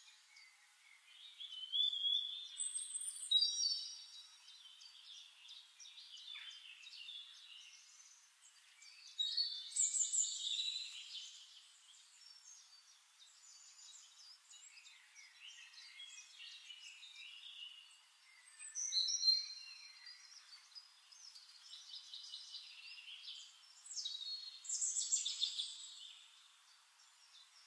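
Small birds chirping and warbling in four short bouts of high, thin calls, with quieter twittering between them.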